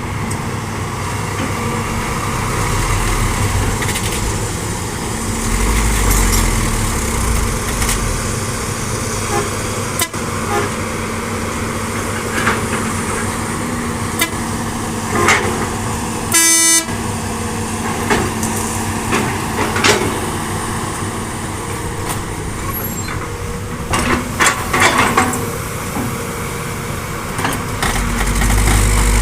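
Excavator's diesel engine running steadily, its low rumble swelling now and then, with scattered knocks and scrapes. A single short horn toot sounds about halfway through.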